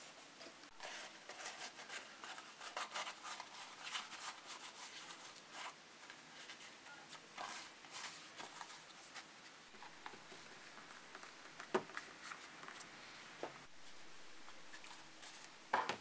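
Craft knife cutting leather on a cutting mat: a quick run of short, scratchy strokes for the first several seconds. Later, quieter handling with a few sharp taps and knocks.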